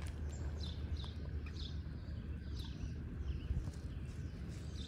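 Bird chirping over and over, short falling high notes about one or two a second, over a steady low rumble.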